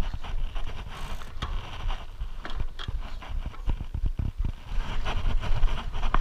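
Mountain bike riding over a rough dirt trail: irregular knocks and rattles from the bike as it rolls over rocks and roots, over a steady low rumble of wind buffeting the handlebar-mounted camera.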